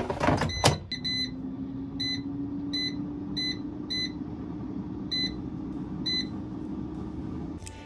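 Cosori air fryer's touch control panel beeping once for each button press as the temperature and cooking time are set: about eight short, same-pitched beeps under a second apart. A steady low hum runs beneath them from about a second in and stops just before the end.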